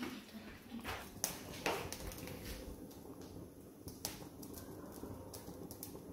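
Scattered soft clicks and taps as a hand scoops a portion of mashed potato and noodle mixture from a ceramic bowl and presses it between the palms, with more clicks bunched in the first two seconds.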